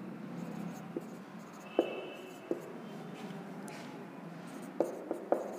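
Marker pen writing on a whiteboard: quiet scratching strokes with a few light taps of the tip and one brief faint squeak about two seconds in.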